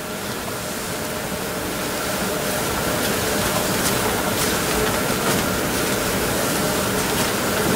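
A steady rushing hiss that swells gradually louder over the first few seconds and then holds, with a faint steady hum underneath.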